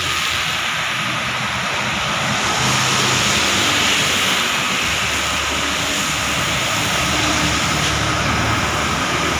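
Traffic passing close by on a rain-soaked toll road: a steady hiss of tyres on the wet asphalt, with truck and bus engines running under it.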